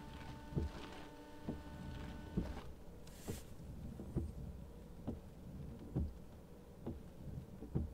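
Car windscreen washer pump whining steadily for the first couple of seconds, then cutting off, while the wipers sweep the sprayed glass with a soft knock at each turn, a little more than once a second.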